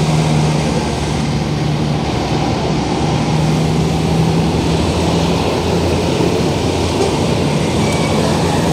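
Traffic on a busy city road passing close by, with a steady low engine drone from passing vehicles.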